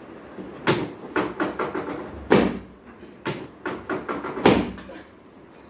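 A run of sharp knocks and thumps during a chiropractic adjustment: three heavy ones about two seconds apart, with quicker, lighter knocks between them.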